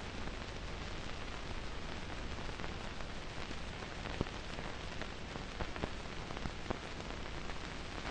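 Steady hiss with a few faint scattered clicks, with no speech or music: the background noise of an old film soundtrack.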